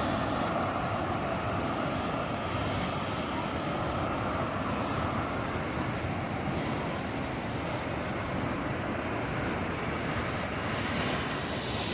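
Steady roar of rushing water from a waterfall.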